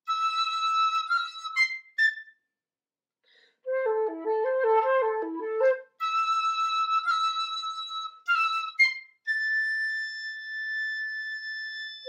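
Flutes and piccolo playing a classical trio: a high, trilling phrase, a short pause about two seconds in, a fast repeating figure in the flute's low register, the high phrase again, and near the end one long held high note.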